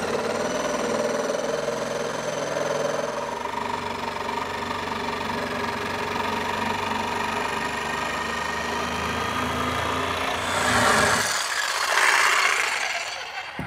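DeWalt jigsaw running steadily as it cuts through a walnut transom, growing louder near the end before stopping.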